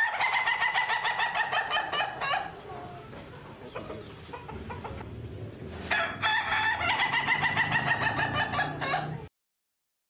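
Domestic roosters crowing: two long crows, each lasting about three seconds, one at the start and another about six seconds in. The sound cuts off abruptly near the end.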